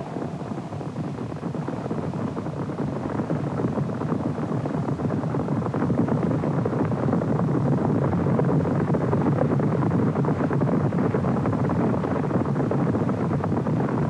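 Rumbling stampede of many running feet, a herd thundering over grassy ground, growing louder over the first few seconds as it approaches and then holding steady.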